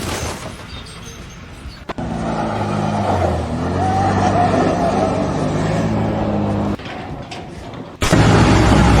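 An engine running steadily for several seconds, set between abrupt cuts to other noisy sounds.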